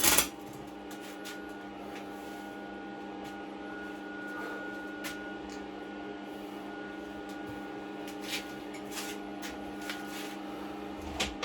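A welding arc's hiss cuts off just after the start, leaving the welding machine's steady hum at several fixed pitches. A few faint ticks sound over the hum.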